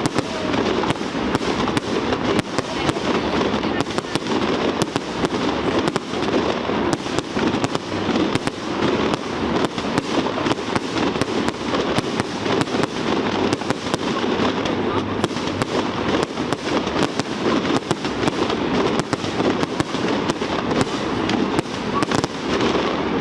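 Fireworks display in a dense, continuous barrage: rapid bangs and crackles following one another without a break.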